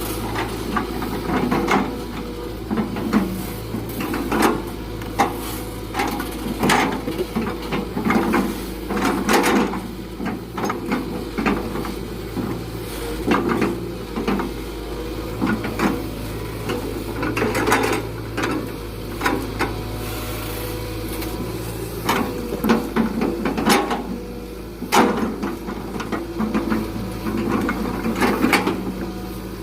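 Excavator engine running steadily under irregular wooden knocks and clatter of rubberwood logs being lifted and dropped.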